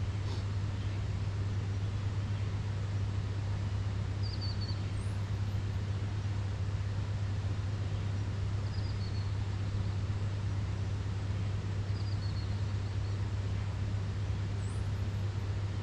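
A steady low hum at one pitch, with a short, high, falling chirp repeating about every four seconds.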